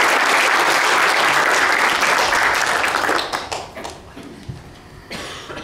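Congregation applauding; the applause dies away about three seconds in, leaving a few scattered claps.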